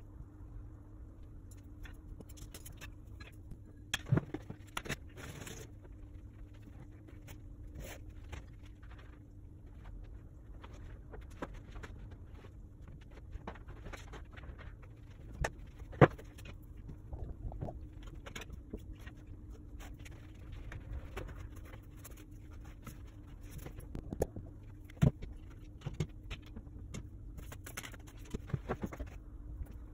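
Scattered taps, clicks and knocks of craft things being handled and set down on a wooden tabletop, such as paint tubes, a plastic palette and a clay tray, over a steady low hum. The sharpest knock comes about 16 seconds in, with others around 4 to 5 and 25 seconds in.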